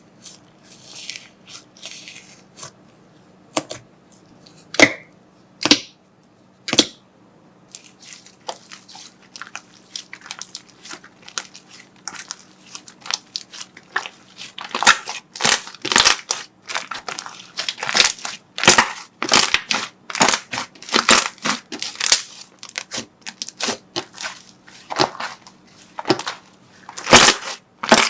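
Crunchy slime being pressed and crushed: a few soft swishes, then scattered single cracks, building into rapid crackling and crunching that grows denser and louder from about halfway through.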